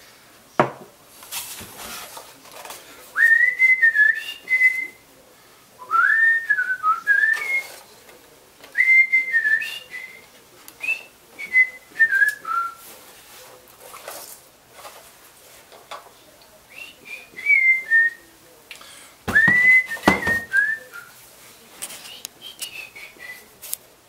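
A person whistling a tune to himself in short phrases, the notes sliding up and falling away, with pauses between. Scattered light clicks and knocks from handling parts, with one duller knock late on.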